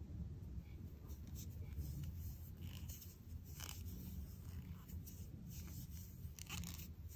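Faint rustling and scraping of yarn being drawn over a crochet hook and handled between the fingers as stitches are worked, a few soft scratchy strokes over a low steady hum.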